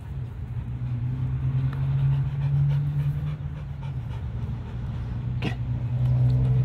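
Dog panting hard while chasing bubbles, with one sharp snap about five and a half seconds in as it bites at them. A steady low hum runs underneath.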